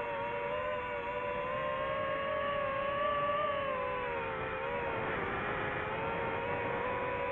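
FPV quadcopter's electric motors whining as it flies, the pitch shifting with throttle: it climbs slightly about three seconds in and dips briefly about five seconds in.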